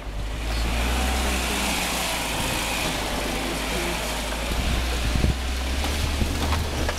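A 1997 Suzuki Sidekick 4x4 driving slowly on a rough dirt trail: a steady low engine drone under a rushing noise of tyres and wind, heard from outside the vehicle. A few sharp knocks come in the last couple of seconds.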